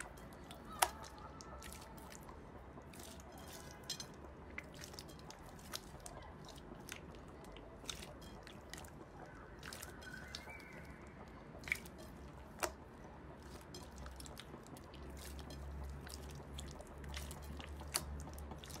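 Hands kneading and pressing clear slime in a glass bowl: faint wet squishing with many irregular sticky clicks and pops.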